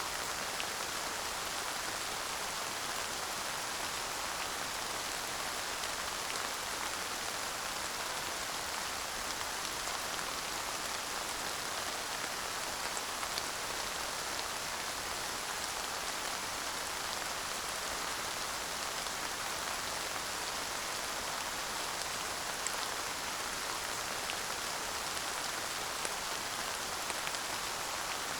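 Steady light rain falling and pattering on surfaces, an even hiss with a few sharper drop ticks now and then; no thunder.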